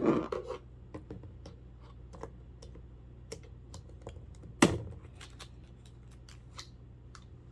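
Irregular light clicks and taps of plastic clock-radio parts and a small hand tool being handled during a teardown. There is a clatter at the start and one louder knock a little past halfway.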